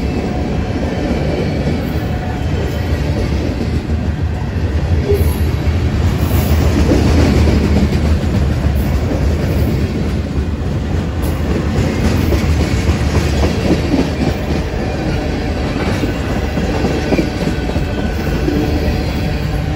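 Freight train cars (covered hoppers and tank cars) rolling past close by: a steady, loud rumble of steel wheels on the rails, swelling a little about a third of the way in.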